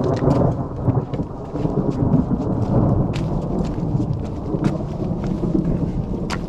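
Thunder rumbling for several seconds in a rainstorm, with scattered sharp taps over the rumble.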